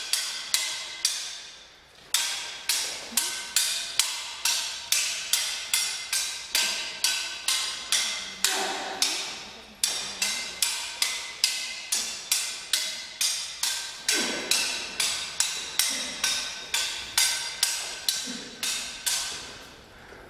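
Stage swords clashing in a rehearsed fight sequence: a fast run of sharp ringing strikes, about two or three a second, with a short pause near the start, echoing in a large stone church.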